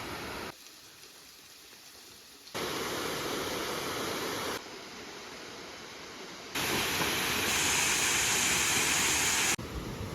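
Steady rushing of falling water from a waterfall, heard in several short takes whose loudness jumps abruptly every couple of seconds. The loudest and brightest stretch comes about two-thirds in and stops sharply near the end.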